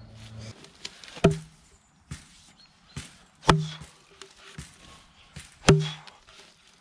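Axe chopping into a log: three solid strikes into the wood about two seconds apart, with fainter knocks between them.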